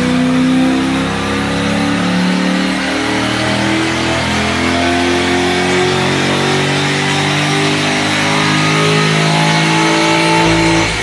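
Corvette Grand Sport's LS3 V8, fitted with Kooks headers, a catless X-pipe and Borla exhaust, making a wide-open dyno pull. Its pitch climbs steadily, dips briefly about two seconds in, climbs again, and lets off near the end.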